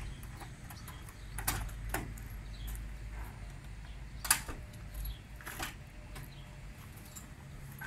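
Cab door handle and latch of a Volvo FH12 truck being worked: a few sharp clicks and clacks, the loudest a little after four seconds in.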